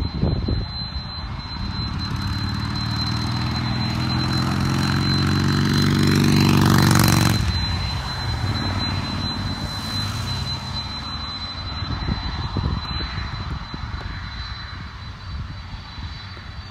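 A Jeep Grand Cherokee SUV drives past close by on the road, its tyre and engine noise swelling to the loudest point about seven seconds in and then dropping away quickly. Under it runs the steady distant rumble of the jet engines of a UPS Boeing 767-300 freighter on the runway.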